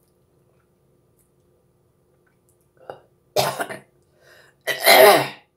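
A woman coughing while eating soup: two loud coughs about a second apart, after a small one, following a few seconds of quiet.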